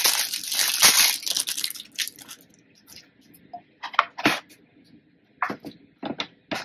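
Plastic wrapping crinkling for about two seconds, then a few sharp clicks as the metal hinges of a quilted nail hand-rest case are swung open, two close together about four seconds in and more near the end.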